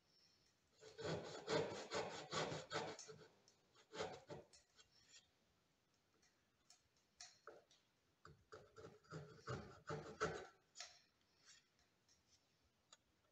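Backsaw cutting joint kerfs by hand into a wooden board, in quick rasping back-and-forth strokes. There are two main runs of sawing, about a second in and again around eight seconds in, with a lull and a few light taps between them.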